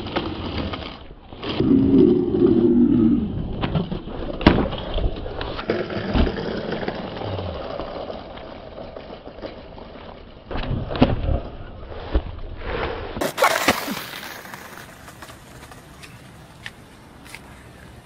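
Skateboard wheels rolling and rumbling on pavement, with sharp knocks and clacks now and then; quieter after a cut about two-thirds of the way in.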